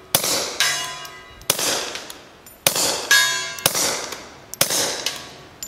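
A string of about five quiet shots, roughly a second apart, from a Beretta 21A .22 LR pistol fitted with a suppressor. Several shots are followed about half a second later by a steel gong target ringing as the bullet hits it.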